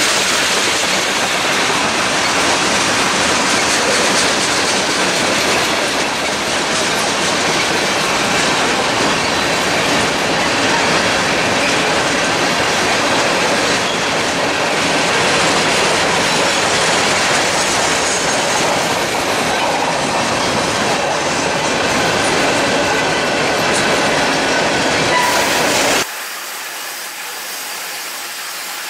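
Freight cars of a long train rolling past close by: a steady roar of steel wheels on rail with clickety-clack over the rail joints, as tank cars give way to empty covered grain hoppers. Near the end the sound drops suddenly and loses its low rumble.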